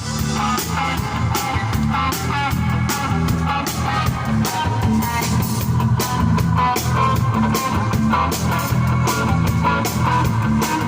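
Instrumental pop music with guitar over a moving bass line and a steady drum beat, without vocals.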